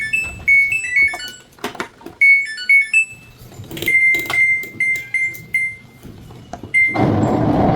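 Samsung washer-dryer control panel beeping: a short stepped tune, then a run of single beeps with clicks of buttons being pressed. About seven seconds in, a loud steady rattling noise starts as the machine begins drawing in water, the noise being complained about.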